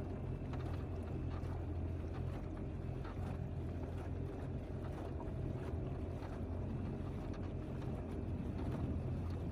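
Small outboard motor running steadily as a dinghy motors across the water, a low, even drone, with water rushing along the hull and wind on the microphone.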